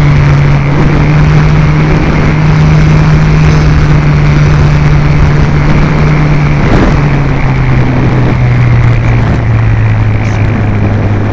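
Electric motor and propeller of a Multiplex FunCub RC plane heard from its onboard camera, running steadily with air rushing past. The pitch drops in two steps, about seven and about nine seconds in, as the throttle is eased back on the landing approach.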